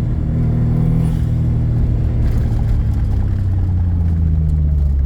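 An old car's small-turbo engine running steadily, its pitch easing slowly lower over the last few seconds.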